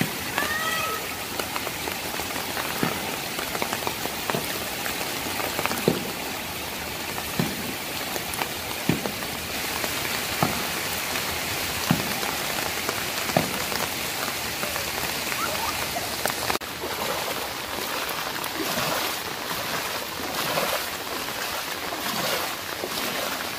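Heavy monsoon rain falling steadily onto floodwater, an even hiss. Short soft knocks or splashes come about every second and a half through the first two-thirds.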